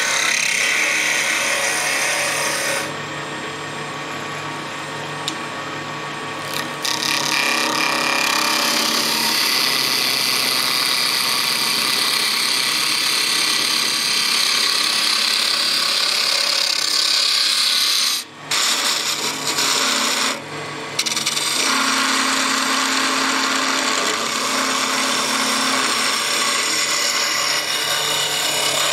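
A gouge cutting a wooden blank spinning on a wood lathe: a steady shearing hiss of shavings coming off, over the lathe motor's low hum. The cutting eases for a few seconds about three seconds in and breaks off twice, briefly, later on as the tool is lifted from the wood.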